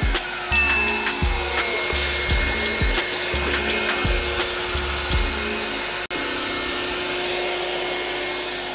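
Background music with a steady bass beat; the beat stops about six seconds in and a steady held tone goes on.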